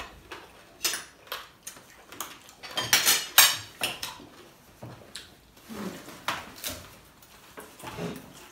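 Eating at close range: irregular crunching bites of crackers and chewing, mixed with cutlery clicking on plates, with a dense cluster of crunches about three seconds in.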